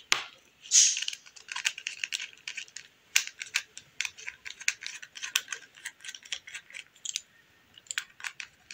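Small precision screwdriver loosening the tiny screws on the plastic clamp mount of a BT-12 Bluetooth helmet headset: quick, irregular light clicks and scratches, with a louder scrape about a second in.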